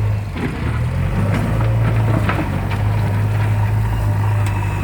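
JCB backhoe loader's diesel engine running steadily, with scattered light clicks and knocks over the first few seconds.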